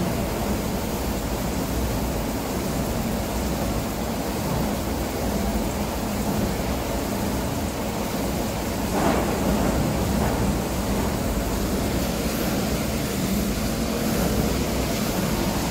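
160 kW metal chip shredder running steadily, with a constant rush of shredded metal chips pouring from its discharge, and a brief louder surge about nine seconds in.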